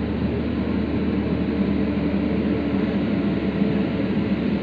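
An engine running at a steady speed, an even low drone over a constant noisy hiss.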